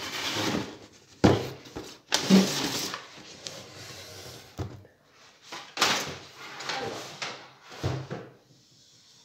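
Long cardboard boxes being handled: a diamond-painting kit box and its shipping carton sliding and scraping against each other and the table, with several sharp knocks of cardboard.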